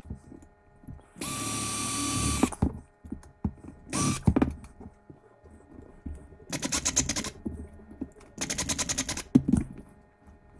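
Power drill running in four short bursts as it drills out the rivet posts that hold a diecast toy car's base to its body. The first burst is steady. The last two have a fast, even pulsing as the bit cuts into the metal posts.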